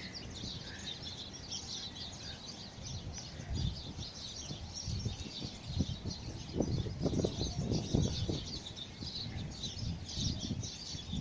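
A flock of small birds chirping and chattering continuously, many short overlapping calls. Under it, irregular low rumbles of strong wind gusting on the microphone, heaviest a little past the middle.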